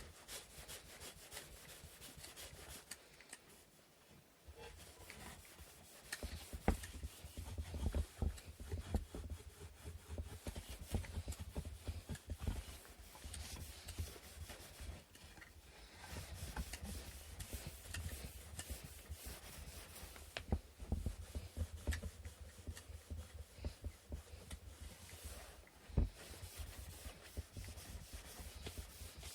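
Sandpaper rubbed by hand over the wooden parts of an inkle loom in quick back-and-forth strokes, pausing briefly about three seconds in, with an occasional light knock of wood.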